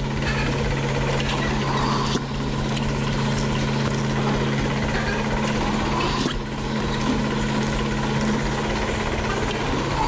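Milking parlor vacuum system running with a steady hum and a constant hiss of air drawn into a milking unit as its teat cups are put on a cow's teats.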